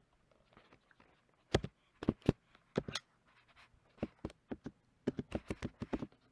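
Computer keyboard keys clicking as a password is typed: a few scattered keystrokes, then a quicker run of them near the end.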